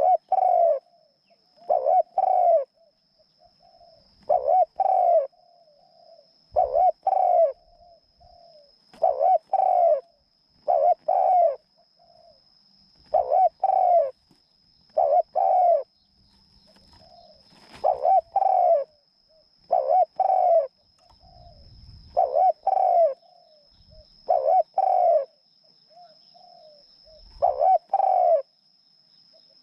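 A captive decoy dove cooing repeatedly: a pair of loud low coos about every two seconds, with softer short notes in between.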